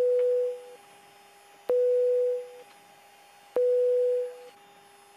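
A single-pitched electronic tone sounding three times, about every two seconds, each starting with a click and fading out after just under a second, over a faint steady hum.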